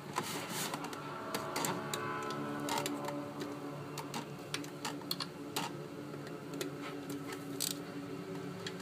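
Irregular sharp clicks and taps over soft background music from a television.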